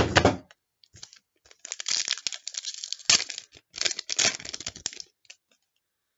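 A trading-card pack wrapper being torn open and crinkled, a rustling crackle for about three seconds with a couple of sharper snaps.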